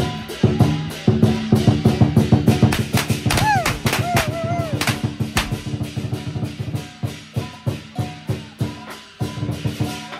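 Music with a fast, steady drum beat over sustained low notes, with a few sliding pitched notes in the middle.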